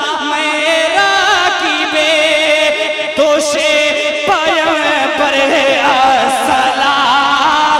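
A man singing a manqabat, a devotional poem for Imam Hussain, into a stage microphone, drawing out long melismatic notes whose pitch wavers and curls with ornaments.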